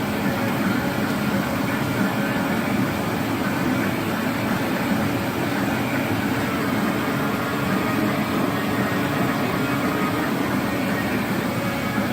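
Steady mechanical drone, like an engine running, with no breaks or changes.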